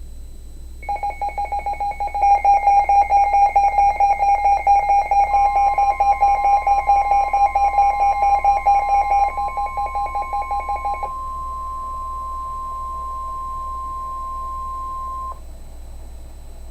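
Emergency Alert System alert tones: rapid pulsing electronic beeps start about a second in and stop about 11 s in. A steady single-pitch weather radio warning alarm tone starts about 5 s in and cuts off about 15 s in.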